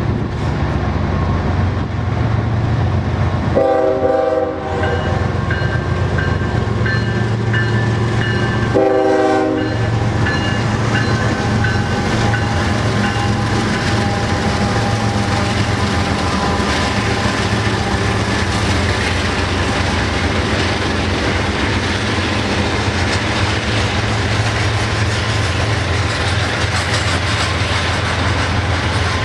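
Union Pacific freight locomotive horn sounding two short blasts about five seconds apart, a friendly toot from the engineer, over the steady low rumble and wheel clatter of a double-stack container train rolling by.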